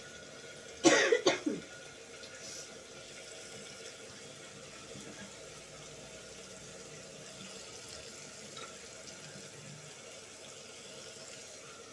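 A quick cluster of metallic clinks, a steel plate knocking against the rim of a steel pot as spices are tipped in, about a second in. After that, a steady faint hiss from the pot on the gas stove.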